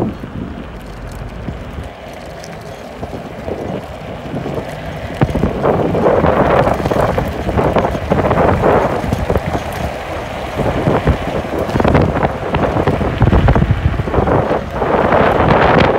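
Wind buffeting the microphone of a camera riding on an electric scooter, a rough gusty rumble that grows louder about five seconds in as the scooter moves along at speed.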